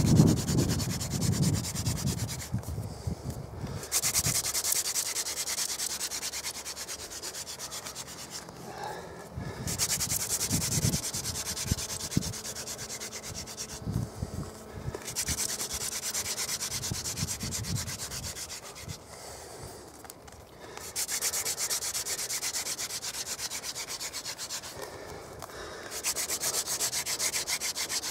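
Friction-fire hand drill: a wooden spindle spun back and forth between the palms, its tip grinding into a wooden hearth board with a dry scraping hiss. The drilling comes in runs of about four to five seconds, broken by short pauses of about a second, about six runs in all.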